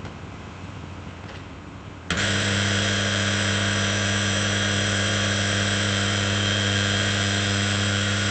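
Electric drill motor starting abruptly about two seconds in, then running steadily at a constant high speed with an even whine, as it drills a hole. Before it starts there is only a low hum with a few light clicks.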